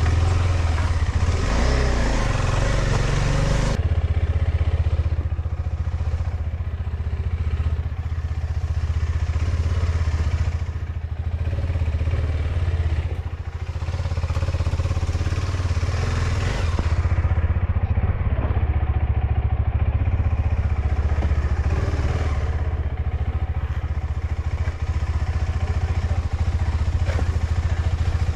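KTM 390 Adventure's single-cylinder engine running while riding, a steady low drone. A louder rush of noise over it cuts off suddenly about four seconds in.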